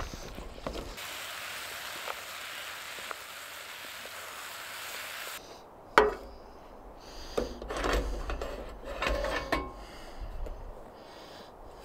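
Camp cooking on a portable butane stove: a steady hiss for a few seconds, then one sharp knock as a small pot is set down on a bamboo cutting board, followed by a wooden spatula scraping carrots, onion and sausage out of a collapsible silicone pot into it.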